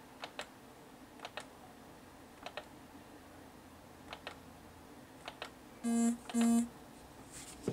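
Computer mouse clicking, a quick press-and-release pair of clicks about every second, as an on-screen dial is stepped through its settings. About six seconds in come two short buzzy beeps half a second apart, the loudest sounds here.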